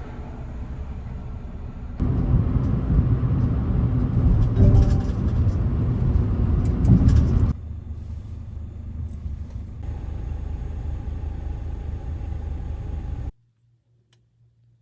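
Car driving on the road: a steady rumble of engine and tyre noise, in several cut-together stretches of differing loudness, that stops suddenly about 13 seconds in, leaving near silence.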